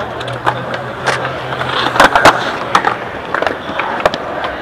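Skateboard clattering on concrete: a run of sharp clacks as the board hits the ground, with wheels rolling, the loudest two clacks a little over two seconds in.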